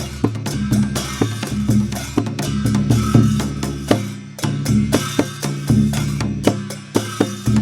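Dhime drum played in a fast, dense run of strokes, its deep bass head ringing under sharp, bright hits.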